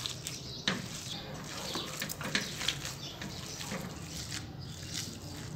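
Gloved hand kneading and mixing seasoned beef mince in a bowl: irregular wet squelching with small clicks.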